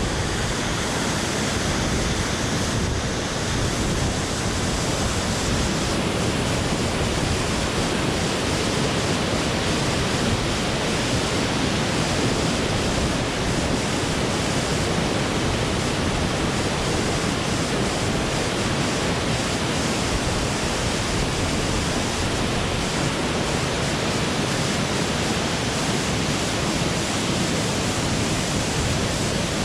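Steady rush of falling water from a waterfall close by, even and unbroken throughout.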